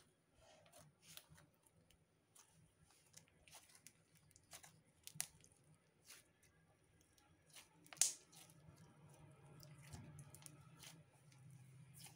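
Slime being pressed into and pulled off small gems scattered on a wooden table: faint sticky tearing and squishing with scattered light clicks of the gems, and one sharper click about eight seconds in.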